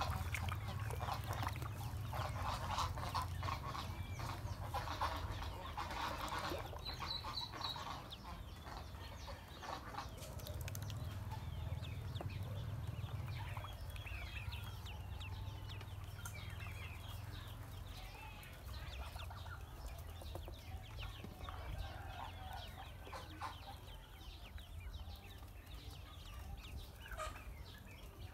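Ducklings peeping: many short, high chirps overlapping, busiest in the first several seconds and thinning later. A low rumble runs underneath through the first half.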